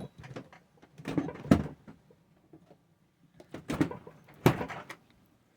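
A few sharp knocks and clunks from objects being handled in a kitchen. The loudest comes about a second and a half in, and two more come near four and four and a half seconds.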